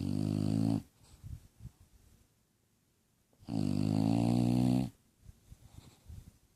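A sleeping bulldog snoring: two loud, drawn-out snores on the in-breath, about three and a half seconds apart, with softer breath sounds between them.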